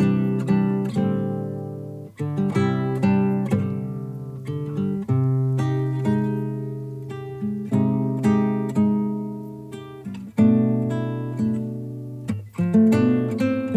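Acoustic guitar played solo, a sequence of strummed chords and plucked notes, each struck and ringing out before fading.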